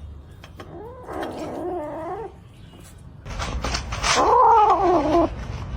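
A cat yowling twice: a long, wavering call about a second in, then a louder one a couple of seconds later.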